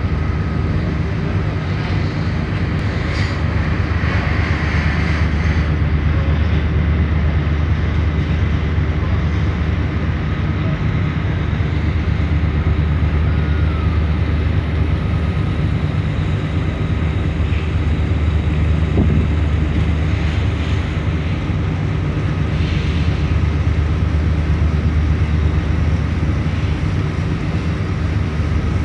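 Boat engine droning steadily with a deep, even hum, heard from on board while the vessel is under way.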